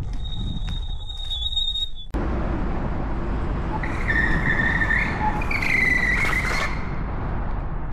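Electric scooter riding over rough ground with rumbling tyre and wind noise. A steady high whine cuts off abruptly about two seconds in. Near the middle the brakes give a wavering high squeal for about three seconds; the owner says the brakes squeal and the pads need replacing with resin ones.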